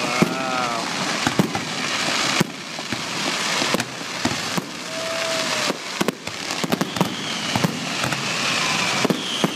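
Fireworks at close range: dense, continuous crackling from fountain and comet effects, broken by many sharp bangs.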